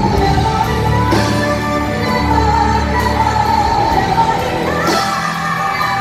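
Live pop ballad: a female vocalist singing long held notes into a microphone over a backing band, stepping up to a higher note about five seconds in.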